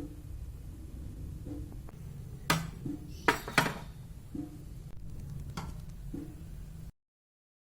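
Dishes and kitchen containers being handled, knocking and clinking: three sharp knocks in the middle and a lighter one later, over a low steady hum. The sound cuts off abruptly near the end.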